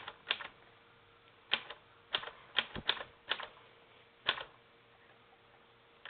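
Smith-Corona Silent typewriter typing one word, about eight separate typebar strikes on the platen at an uneven hand-typing pace, the test word 'Amaranth' used to check type alignment after the M typebar was bent down.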